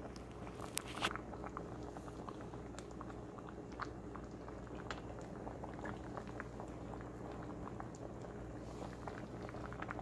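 A pot of potato and tomato asaro simmering on the stove: a steady run of small bubbling pops and ticks over a low hum, with a couple of sharper ticks about a second in.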